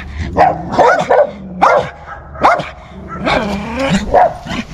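A guard dog behind a hedge-lined fence barking repeatedly at a passing dog: about six sharp, yelping barks, one every half second to second.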